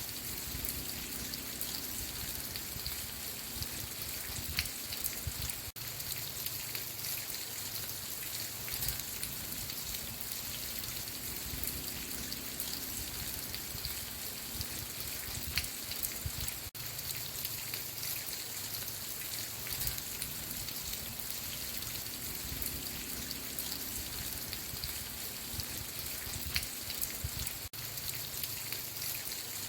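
Steady rain: a dense hiss of falling rain with scattered individual drop ticks over a low rumble. The sound drops out for an instant about every eleven seconds.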